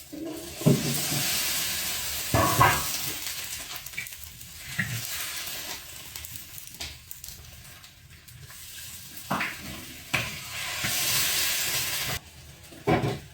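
A cooking pot on the stove sizzling and hissing with steam, swelling and fading, with scattered knocks and clatters of utensils against the pot.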